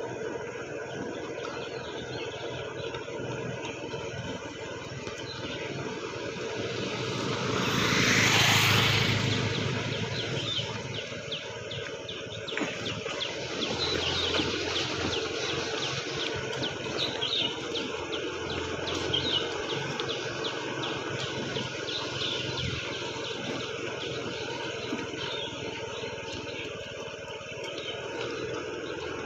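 Outdoor road noise with a steady engine hum, and a vehicle passing close by that swells and fades about eight to ten seconds in. Later, faint regular taps of running footsteps on asphalt come through.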